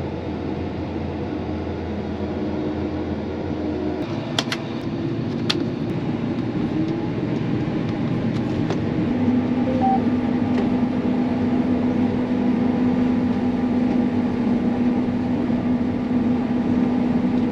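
Combine harvester running steadily, with a couple of sharp clicks about four and five seconds in. From about nine seconds a steady hum comes in and the sound grows a little louder as the machine gets going.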